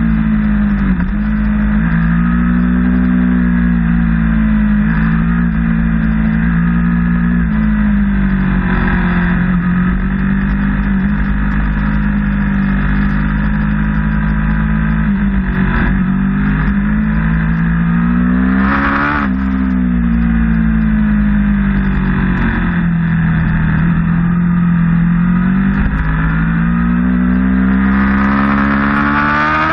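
Sport motorcycle engine running hard at track speed, heard from on the bike, its pitch rising and falling with the throttle through the corners, over a steady rush of wind and road noise.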